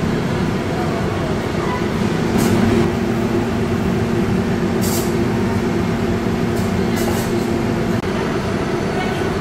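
Steady low mechanical drone of restaurant ventilation and exhaust fans, with a few short hisses.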